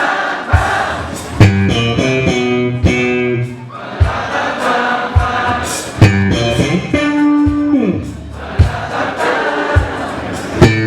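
Live soul-funk band playing a groove: drum kit hits, electric bass and guitar, with voices singing along.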